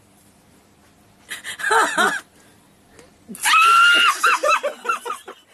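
Laughter starts about a second in. Near the middle comes a loud, high-pitched shriek held at a steady pitch for about a second, which breaks into fits of laughter.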